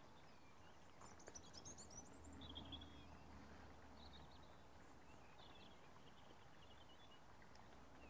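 Near silence with faint birdsong: small birds chirping and trilling in short snatches during the first two-thirds or so.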